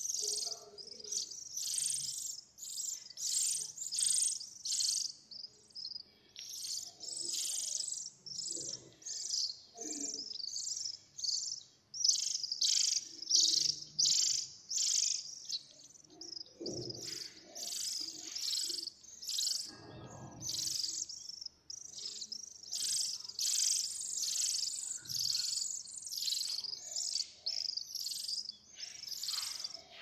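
Nestling songbirds begging for food with rapid, high-pitched chirps as they are hand-fed from a syringe. The chirps come in quick runs broken by short pauses.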